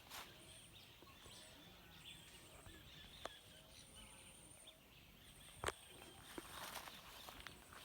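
Faint outdoor ambience: thin, high insect trills coming and going, with a couple of sharp clicks and some light rustling near the end.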